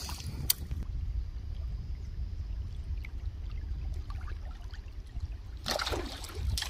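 A hooked rohu splashing and thrashing at the water's surface near the end, as the rod bends and pulls it up. Under it, a steady low rumble of wind on the microphone.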